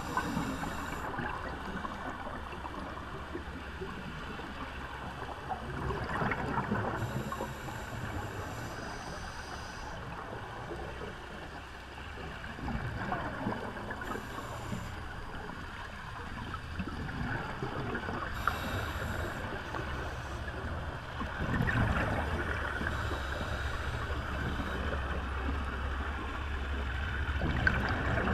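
Scuba divers breathing through regulators underwater, their exhaled bubbles rushing up in swells every several seconds.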